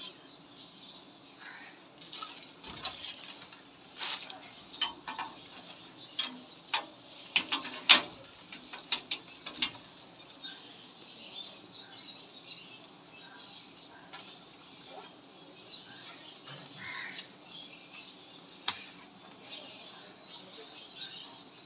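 Handling at a padlocked metal grille gate: a scatter of small metallic clicks and clinks, with some rustling of a plastic parcel wrapper, busiest in the first ten seconds and sparser after.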